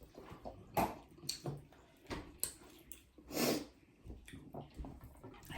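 Eating sounds from a meal of dhido, rice and chicken curry: irregular wet chewing, smacking and small clicks, with one longer noisy mouth sound about three and a half seconds in.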